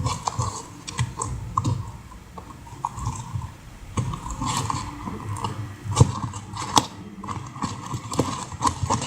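Slime mixture being stirred in its container: a stirrer tapping and clicking irregularly against the sides, with sticky squishing in between.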